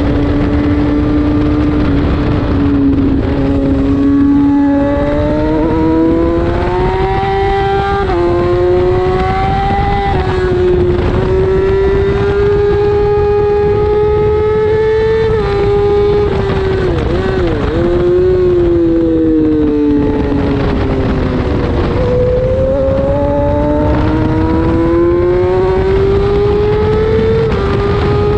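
Race motorcycle engine at full throttle, heard from the bike itself. Its pitch climbs and drops back sharply at each upshift. About halfway through it wavers and falls away as the rider shuts off and downshifts, then it climbs through the gears again. Wind rush runs underneath.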